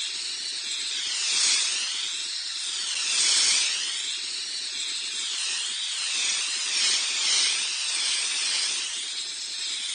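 Effervescent aspirin tablet fizzing in water: a steady hiss of bursting bubbles, its tone sweeping up and down in slow swirls every second or two.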